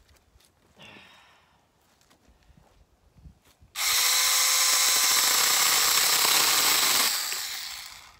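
Tiny handheld electric chainsaw cutting through a thin branch. After a short faint blip about a second in, the motor and chain run loud and steady at full speed for about three seconds from just before the middle, then wind down as it is let off, the cut done quickly.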